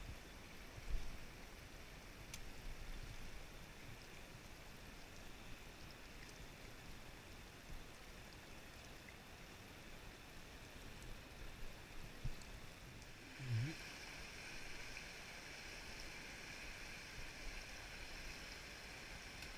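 River current rushing over and around rocks, a steady hiss that grows brighter about two-thirds of the way through. A few dull knocks sound over it, the loudest about a second in and another near the two-thirds mark.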